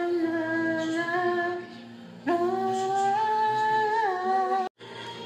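Wordless singing: a voice humming a slow melody in long held notes, with a short pause and a leap up to a higher note partway through. It cuts off abruptly near the end.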